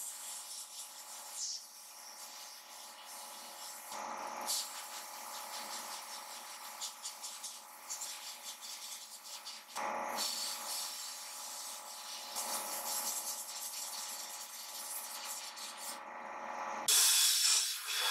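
Abrasive blasting in a sandblast cabinet: the blast gun hisses in repeated bursts as it is triggered against brass blow-torch parts, over a steady background drone, with the loudest burst near the end.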